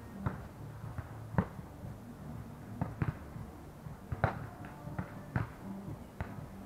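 Beach volleyball being hit by players' hands and forearms during a rally: a string of short, sharp slaps at irregular intervals.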